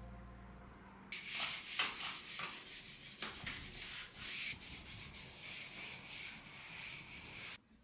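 Uneven rubbing strokes against a surface, like scrubbing during cleaning, lasting about six seconds and stopping abruptly near the end. Background music fades out just before the scrubbing starts.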